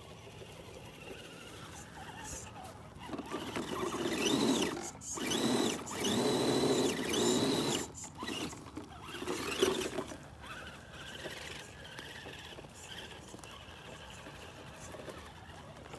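Remo Hobby 1/10 scale RC rock crawler's electric motor and geared drivetrain whining in several short throttle bursts, the pitch climbing, holding and dropping with each one.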